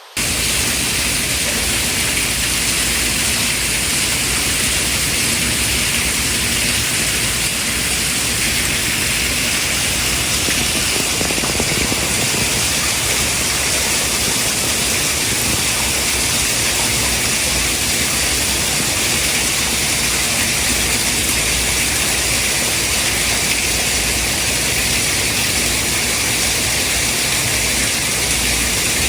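Loud, steady white noise with a strong high hiss, cutting in suddenly at the very start and then holding even and unchanged.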